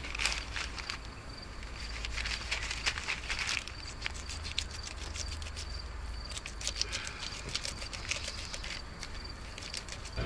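A knife scraping scales off a carp, in several runs of quick scratchy strokes. Crickets chirp steadily behind it.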